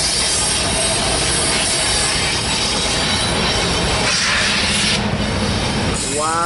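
Freight train passing close by: the mid-train Norfolk Southern AC44C6M diesel locomotive going past, then loaded double-stack cars, with a steady rumble of wheels on rail. About four seconds in there is a brief brighter hissing rush.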